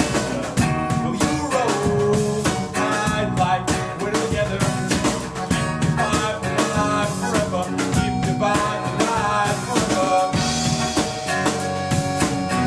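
Live band playing an instrumental passage: drum kit keeping the beat with cymbals, under guitar, bass and accordion, with some melodic lines sliding in pitch.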